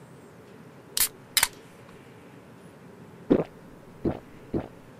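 Small plastic toys handled: two sharp clicks close together about a second in, then three duller knocks about half a second apart as a miniature toy drink can is held to a plastic toy bear's mouth.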